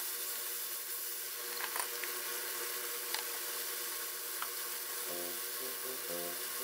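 Shirataki noodles and chicken sizzling in a frying pan as the noodles' water cooks off, a steady hiss with a few light clicks of a wooden spatula against the pan.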